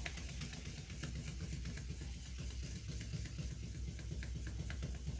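Fine 2500-grit wet sandpaper rubbing over a plastic headlight lens: a soft, even hiss with a few faint ticks, over a steady low hum.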